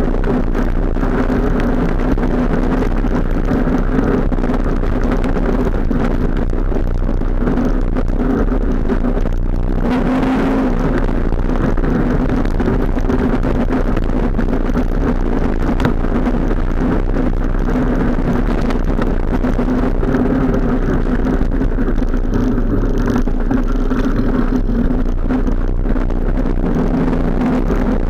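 ATV engine running steadily while riding along a dirt trail, with a brief dip about ten seconds in.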